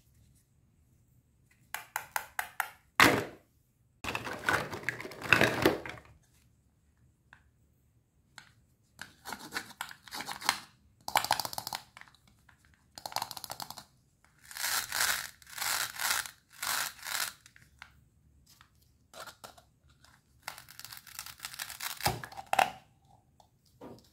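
Hook-and-loop (Velcro) fastening on toy cutting-fruit halves being ripped apart and pressed together, in a series of short ripping tears with pauses between. There are a couple of sharp knocks, one about 3 seconds in and one near the end, as the toy pieces hit each other.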